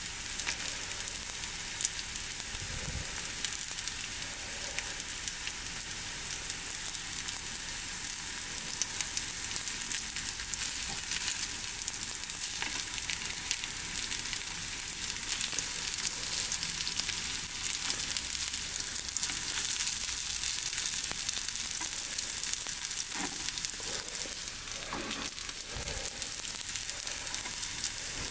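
Breaded potato-salad ham cutlets shallow-frying in oil in a frying pan: a steady sizzle with fine crackling. A few soft knocks near the end as chopsticks turn the cutlets.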